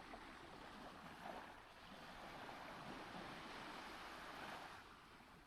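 Faint sea waves, a soft, even rush of surf that swells a little partway through and eases off near the end.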